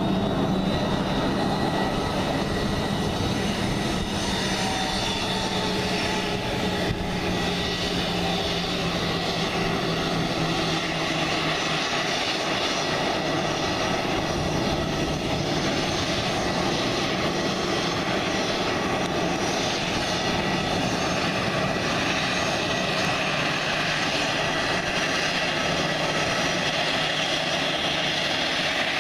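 Airbus A320 airliner's twin jet engines running at taxi power as it rolls along the taxiway: a steady rumble with a high whine. A low hum fades out about twelve seconds in.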